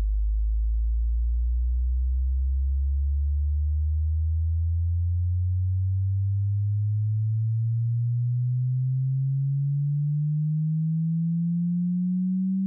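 Hearing-test sine tone, a single pure electronic tone gliding slowly and smoothly upward in pitch from very low to low, at a steady level.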